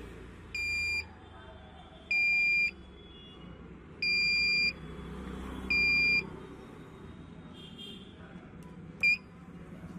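Buzzer of a laser-beam security alarm sounding a steady high-pitched tone in four separate bursts of roughly half a second each, then one very short blip near the end. It sounds each time the red laser beam falling on the photodiode is blocked.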